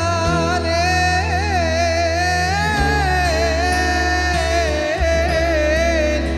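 Music: a single long, wavering melody line with ornamented turns, held over steady bass notes that change about every two to three seconds.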